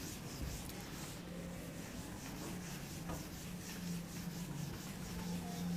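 Duster wiping marker ink off a whiteboard: faint, repeated back-and-forth rubbing strokes.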